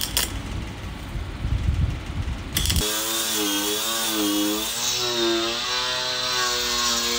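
A welding torch flame roars in a low, rough rumble with a few sharp clicks. About three seconds in this cuts abruptly to an angle grinder running on the steel rocker panel, its whine wavering up and down in pitch as it is pressed to the metal.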